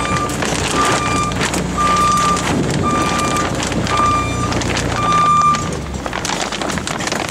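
Vehicle back-up alarm beeping steadily about once a second over a running engine. The beeps stop about five and a half seconds in and the engine runs on.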